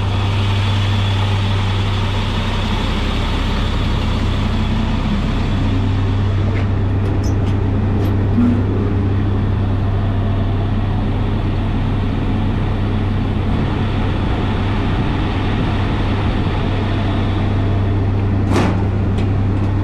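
Diesel engine of a septic vacuum truck idling steadily with a constant low drone. There are a few light clicks about halfway through and near the end.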